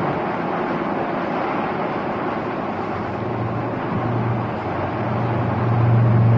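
Boat engine running under a steady rush of wind and water. A low steady drone comes in about three seconds in and grows louder near the end.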